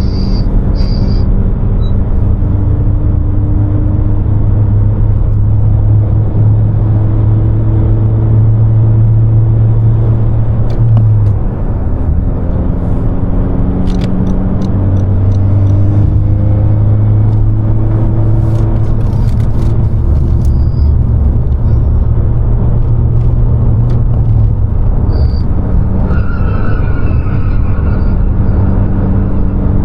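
2020 Honda Civic Si's turbocharged four-cylinder engine pulling steadily under load with road noise, its pitch slowly rising, then dipping briefly about eleven seconds in at a gear change before pulling again. A few faint clicks come around the middle.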